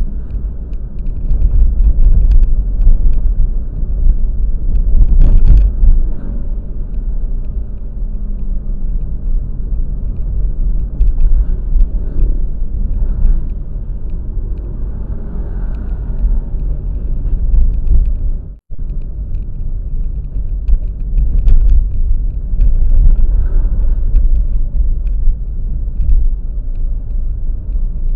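Steady low rumble of a moving road vehicle, unbroken except for a brief dropout about two-thirds of the way through.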